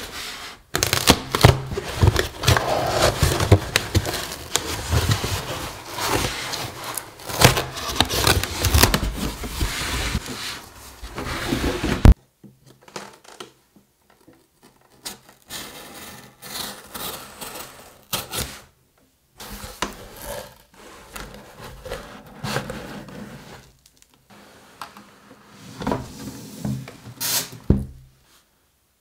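Corrugated cardboard shipping box and cardboard sleeve being opened and handled: flaps and panels scraping, rubbing and crackling with many small knocks. It is loud and busy for about twelve seconds and cuts off suddenly, then comes back as quieter, intermittent handling with a sharp click near the end.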